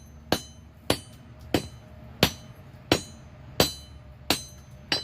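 Hand hammer striking a hot mild-steel block, flattening its top while the steel is at a dull orange heat. There are eight evenly paced blows about two-thirds of a second apart, each with a short metallic ring.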